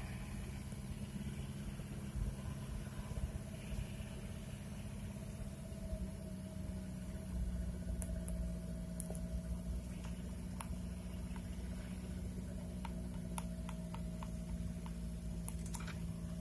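Chevrolet LUV 4x4 double-cab pickup's engine running steadily on the move, heard from inside the cabin, with scattered sharp clicks and rattles from about halfway through.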